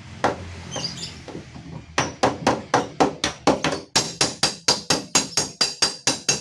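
Hammer beating out a dent in a Honda Brio's door panel: after a quieter start, rapid even blows about four a second begin about two seconds in, ringing metallically from about four seconds in.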